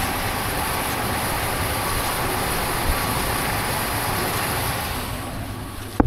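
Baumatic BD45KG tumble dryer running steadily with its back panel off: the motor, belt-driven drum and fan are spinning. The motor only got going after a hand spin at the back, the sign of a failing start capacitor that can't start it on its own.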